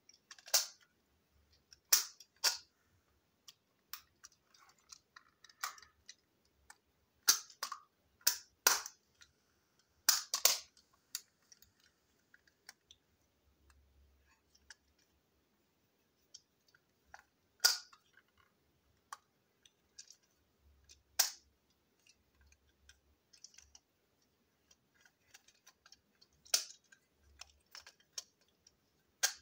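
Hard plastic toy train parts clicking and tapping against each other, sharp and irregular with short gaps, as a wagon is taken apart and put back together by hand.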